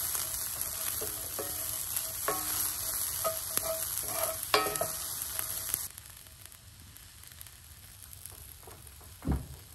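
Diced red onion sizzling in a hot cast-iron skillet, stirred with a wooden spatula that scrapes across the pan several times. About six seconds in, the sizzle drops sharply to a faint hiss, and a single dull thump comes near the end.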